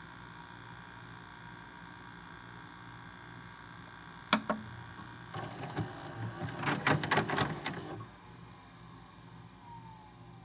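A single sharp click, then a quick run of clicks and knocks lasting about two and a half seconds, over a faint steady low hum.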